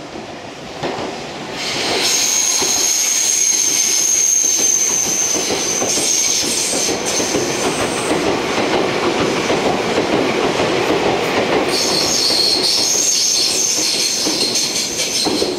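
Meitetsu 2200-series electric train running through the station out of service. Its wheels rumble steadily on the rails with a high wheel squeal, strongest from about two to six seconds in and again near the end.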